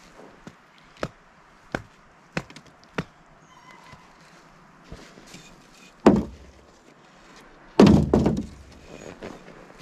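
Hatchet chopping a frozen block of dog food on a wooden stump: four sharp strikes about two-thirds of a second apart, then two louder, heavier cracks near the end. The frozen block is shattering like glass rather than cutting, which the musher puts down to more water than usual mixed into it.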